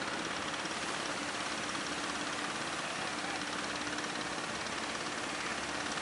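Diesel engines of wooden fishing boats running steadily, a low hum over a constant rush of wide noise from the sea and wind.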